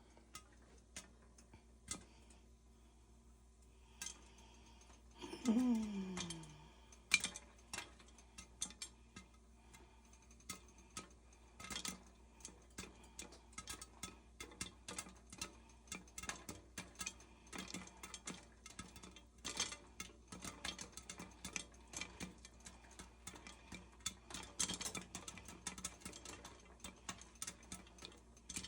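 Irregular light clicks and clatter, like dishes or utensils being handled, growing busier in the second half. About five and a half seconds in, a short falling pitched sound stands out as the loudest moment.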